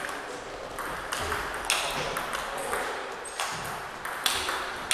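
Table tennis rally: the ball clicking sharply off bats and table, roughly one hit a second.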